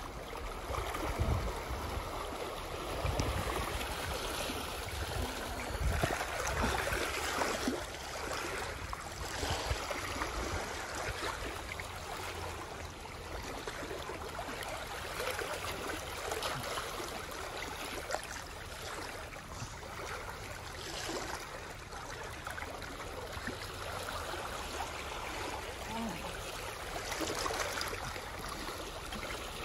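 Small waves lapping and trickling against a rocky shoreline, a steady watery wash, with some low thumps in the first several seconds.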